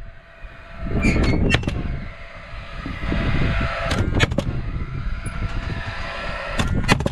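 Paslode cordless framing nailer firing ring-shank nails into a wooden ledger board: sharp shots in three quick clusters of three or four, about three seconds apart. Wind rumbles on the microphone throughout.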